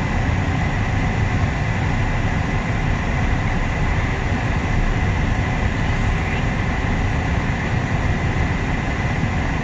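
A long mixed-freight train's railcars rolling steadily past with a continuous low rumble, with a thin steady high-pitched tone over it.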